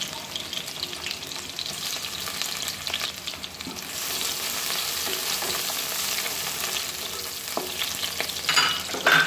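Sliced onions frying in hot oil in a metal karahi: a steady sizzle that grows louder about four seconds in as a wooden spatula stirs them, with a few knocks of the spatula against the pan near the end.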